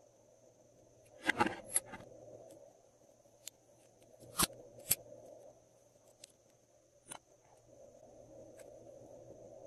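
Small scissors snipping through a lipstick bullet, a quick cluster of cuts about a second in. A few single sharp clicks follow later from handling the metal lipstick tube.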